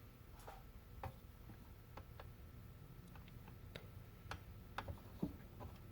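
Faint, irregular light clicks and taps, about a dozen, as small electronic parts and tools are handled at a workbench.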